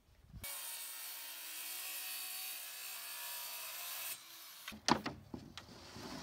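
Corded circular saw cutting through a plywood sheet, a steady high whine that cuts off about four seconds in. Then several sharp wooden knocks as the cut plywood sheet is set onto the floor frame.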